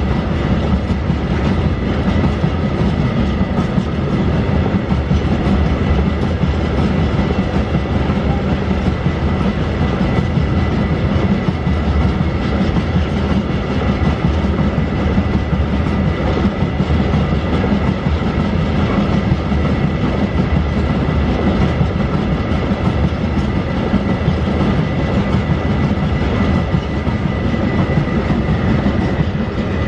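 Wagons of a loaded lime freight train rolling steadily past, wheels clacking over the rail joints, with a thin steady high tone underneath.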